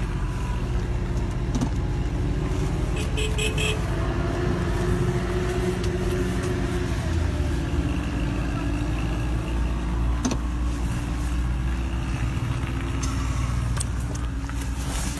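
Car cabin noise while driving: a steady low rumble of engine and tyres, with a quick run of faint ticks about three seconds in.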